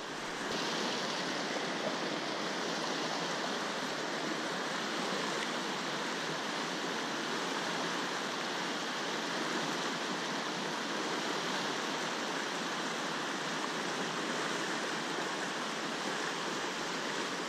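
River water rushing steadily, an even, unbroken hiss of flowing water.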